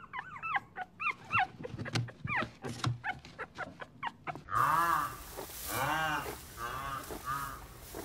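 Puppy whimpering and yipping in short, high cries that rise and fall, several a second, for about four seconds. Then come louder, lower, drawn-out calls from another animal, about one a second.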